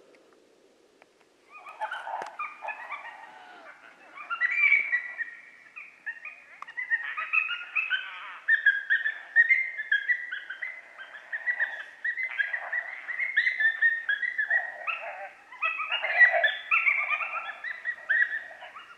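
Coyote vocalizations: a dense string of high yips, whines and short howls that starts about a second and a half in and keeps going with only brief breaks.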